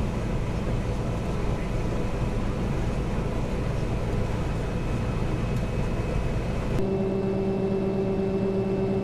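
John Deere combine harvester running, heard from inside the cab: a steady machinery drone with a faint whine. About seven seconds in the sound changes abruptly to a steadier, smoother hum with a strong low tone.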